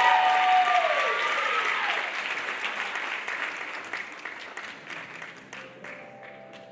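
Audience applauding and cheering, loud at first and dying away over several seconds to a few scattered claps. A held cheer or note slides down in pitch in the first second or so.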